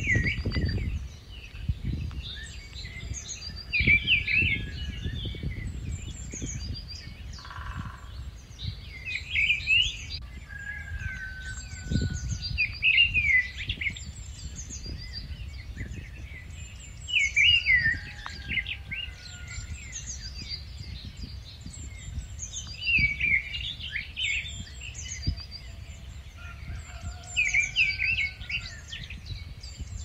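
Rufous-tailed scrub robin singing short, varied phrases every few seconds, over a low rumble of wind on the microphone.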